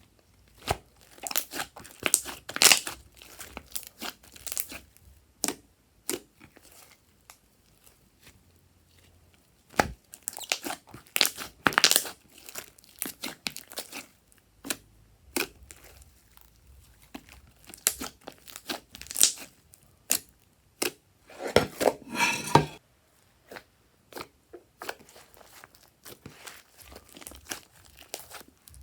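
Crinkling and crackling handling sounds in irregular clusters with short quiet gaps, from materials being worked while making slime. About 22 seconds in there is a longer, denser rasping stretch lasting roughly a second.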